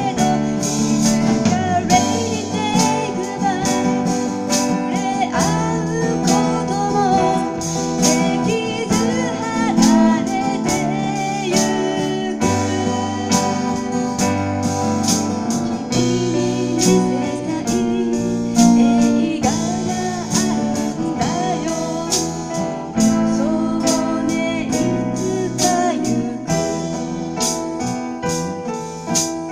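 Live acoustic guitar and keyboard playing a pop song, with a singer's voice carrying the melody over the chords.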